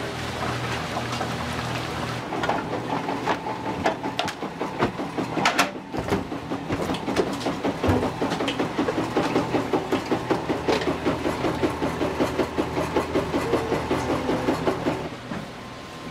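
Udon dough-rolling machine running with a steady, even clacking rhythm of about three to four beats a second. It starts a couple of seconds in and stops near the end.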